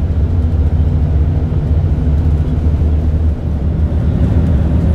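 Steady low drone of a Scania double-decker coach cruising on the highway, heard from inside the passenger cabin: engine hum mixed with road and tyre noise.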